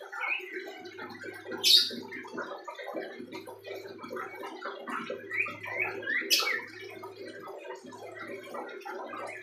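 A young common iora (cipoh) in a cage practising its song, which is still unformed. Two sharp, high chirps come about four and a half seconds apart, with scattered soft twittering notes between them.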